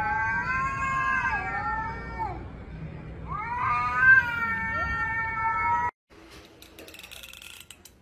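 Cat yowling at another cat in a face-to-face standoff: two long, drawn-out yowls that waver up and down in pitch, with a short pause between them.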